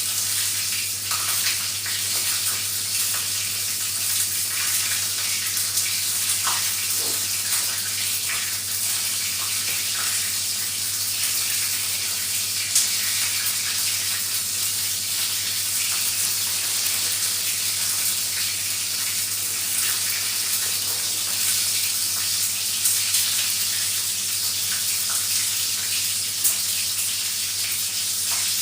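Food frying in a pan: a steady sizzling hiss with scattered small crackles.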